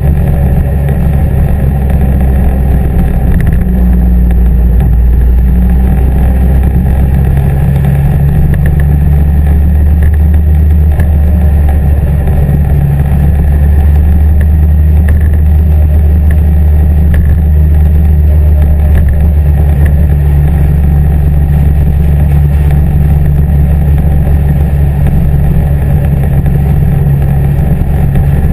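Honda CBF1000's inline-four engine running at a steady cruise, heard close from a mount on the bike with wind noise over the microphone. The engine note holds steady, with small shifts in pitch a few times.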